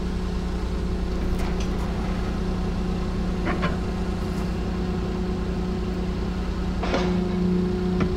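An engine running steadily, with a few metallic knocks as a heavy wheel hub hanging in a lifting strap is worked off the axle; the loudest knock comes near the end.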